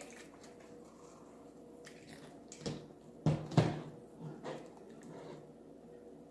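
Jelly-like slime squishing as it is kneaded by hand: a few short wet squishes in the middle, the loudest about three and a half seconds in.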